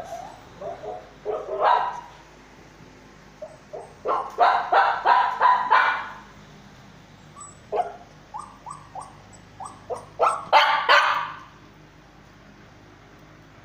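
Shih Tzu barking and yipping: scattered yaps at first, a quick run of about five barks about four seconds in, a string of short sharp yips, and a louder burst of barks that stops about two seconds before the end.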